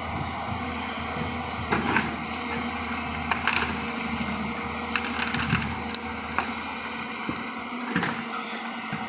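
Hydraulic excavator running steadily while digging earth and rock, with scattered sharp knocks and cracks from the bucket and material, in clusters about two seconds in, around three and a half and five seconds, and again near the end.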